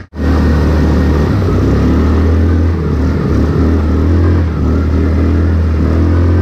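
Yamaha Kodiak 450 ATV's single-cylinder four-stroke engine running steadily under load as the quad drives through standing water on a muddy track, with water sloshing and spraying against it. The sound drops out for an instant at the very start.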